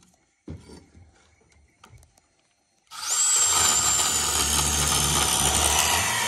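Battery-powered cutting tool starting up about three seconds in and running steadily as it cuts through thick copper pipe, with a high whine that sinks slightly in pitch under load. Before it starts, a few faint knocks from handling the pipe.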